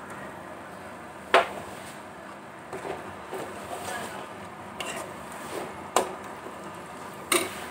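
Metal perforated spoon stirring and scraping a thick masala in an aluminium kadai, knocking sharply against the pan about a second and a half in, around six seconds and again near the end, over a faint steady sizzle from the frying masala.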